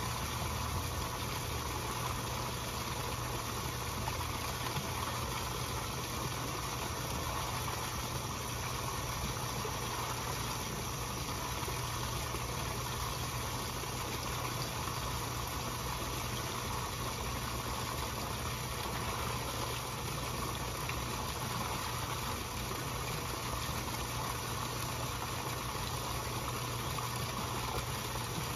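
Steady rushing of churned pond water with a constant low hum, typical of a koi pond's pump and water return running.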